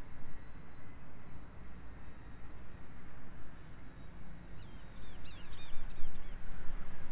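Wind rumbling on an outdoor microphone, with a bird singing a short run of quick warbled chirps a bit more than halfway through.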